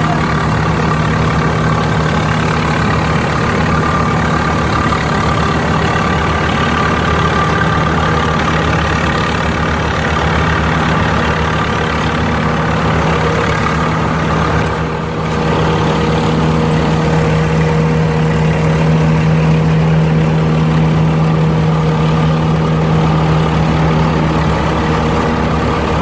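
Tractor-mounted combine harvester running steadily: diesel engine drone with the machine's threshing drive, a steady low hum with a brief dip about halfway through.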